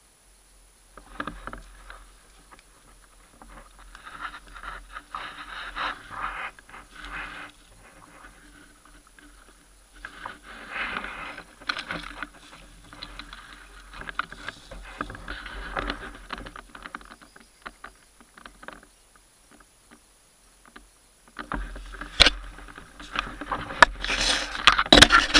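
Dry leaf litter and a ghillie suit rustling and scraping in uneven bursts as an airsoft player creeps through the undergrowth, pausing briefly before a louder stretch near the end that holds a few sharp clicks.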